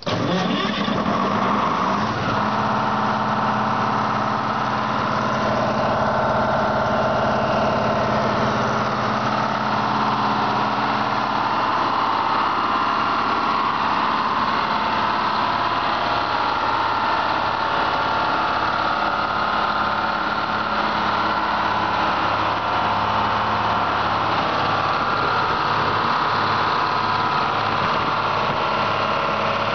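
Detroit Diesel engine of a 225 kW diesel generator set starting up, coming in suddenly and settling within about two seconds into a steady run.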